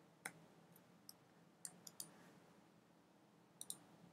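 Faint clicks of a computer mouse, a few at a time, against near-silent room tone.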